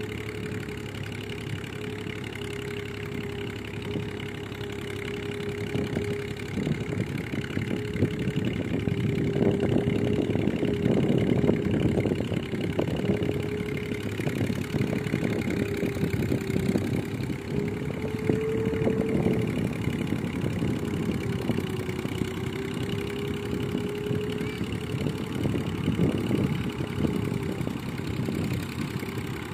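Massey Ferguson 135 tractor engine running steadily as it works a flooded field, growing louder for a few seconds near the middle.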